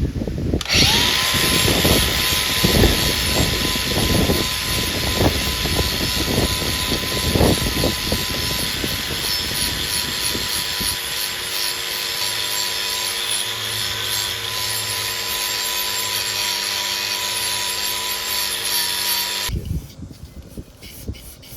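A handheld power tool spins up about a second in and runs steadily with a high whine and a rubbing, grinding noise, with heavier scraping strokes in the first several seconds, then cuts off near the end.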